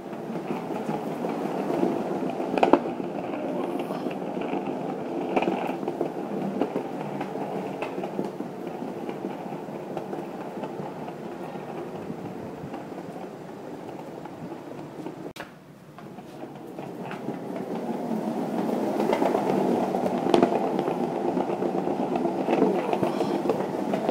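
Skateboard wheels rolling over stone paving tiles: a steady rumble with clacks as the wheels cross the tile joints. The rumble drops off suddenly a little past halfway, then builds again.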